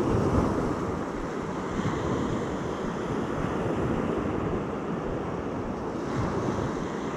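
Small waves washing onto the beach in a steady hiss that swells and eases gently, with wind rumbling on the microphone.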